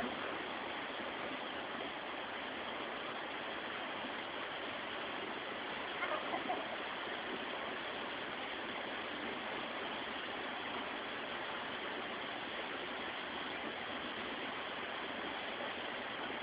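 Waterfall water rushing with a steady, even hiss.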